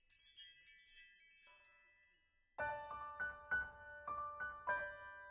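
A short, high tinkling chime sting for about two seconds, then after a brief gap gentle piano music begins, with single notes struck about every half second.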